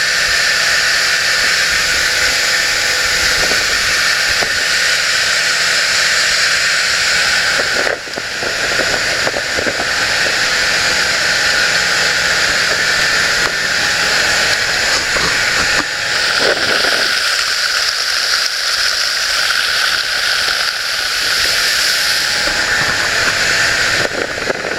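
Motorboat under way: a steady, loud rush of wind and water, with the low drone of the runabout's 307 Chevy V8 underneath. The sound dips briefly about eight seconds in.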